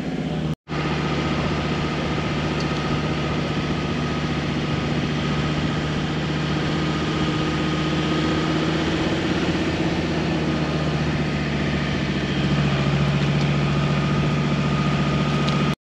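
Vehicle engine running steadily while driving: a steady hum with a faint higher whine above it. The sound drops out for an instant about half a second in, swells a little near the end, and then cuts off abruptly.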